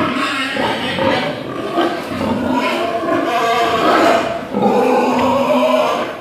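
Pigs grunting loudly and continuously.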